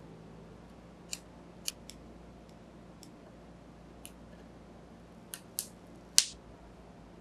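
Sharp plastic clicks and crackles as tweezers lift the protective film off an LED mask's plastic visor: a handful of separate, irregular clicks, the loudest and crispest near the end.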